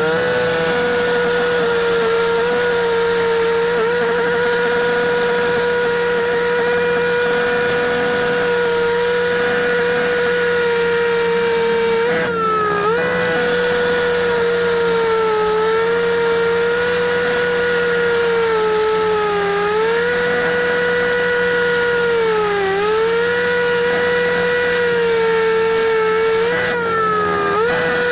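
Concrete-cutting saw running with a steady high-pitched whine whose pitch sags briefly about five times as the blade takes load.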